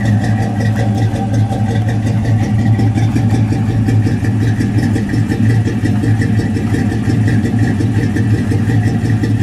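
1964 Pontiac GTO's 389 cubic-inch V8 with tri-power carburetion idling steadily, heard close at its chrome exhaust tips.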